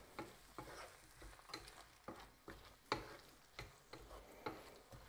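Wooden spatula stirring chopped tomatoes and onions in a stainless steel frying pan, scraping and knocking against the pan about twice a second, over a faint sizzle of the food frying.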